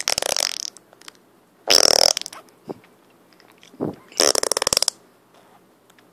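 Three short fart noises, each about half a second long with a rapid flutter, about two seconds apart.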